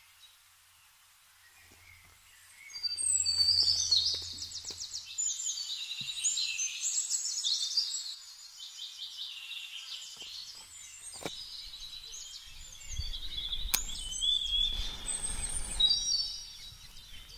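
Birds chirping and singing in a dense run of quick high notes, starting a couple of seconds in. A low rumble joins near the end, with a couple of sharp clicks.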